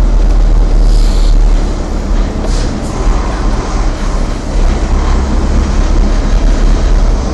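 Vehicle engine and road noise heard from inside the cabin while driving, a steady low drone with a couple of faint clicks.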